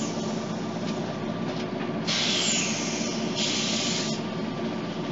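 Scania DC9 five-cylinder diesel of a Scania OmniCity bus running steadily at idle. About two seconds in come two hisses of compressed air from the bus's pneumatics, each about a second long.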